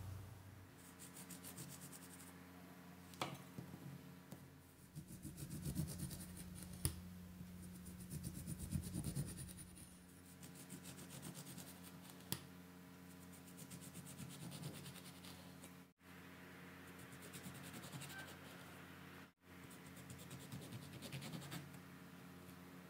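Serrated knife sawing through an orange on a wooden cutting board: quiet, scratchy rasping strokes, with a few sharp clicks.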